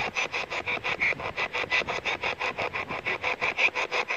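Spirit box sweeping through radio stations, giving a rapid, even chopping of static at about eight bursts a second.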